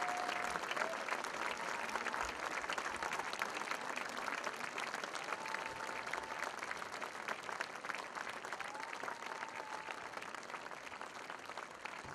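Audience applauding, a dense steady clapping that fades away toward the end, with a couple of brief high held tones above the clapping.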